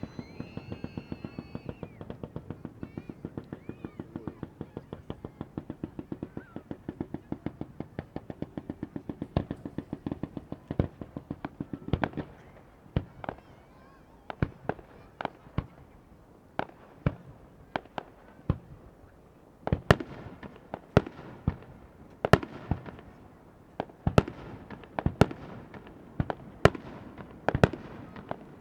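Fireworks display: a rapid-fire salvo of many small bursts, several each second, for about the first twelve seconds, then separate, louder shell bursts about once a second, the loudest coming from about twenty seconds in.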